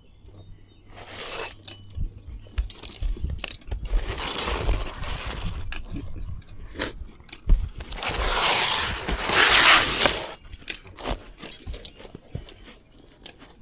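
Asphalt roof shingles being handled and worked, giving gritty scraping and rustling with scattered sharp clicks. The scraping comes in swells about a second, four seconds and eight seconds in, the last the loudest and longest.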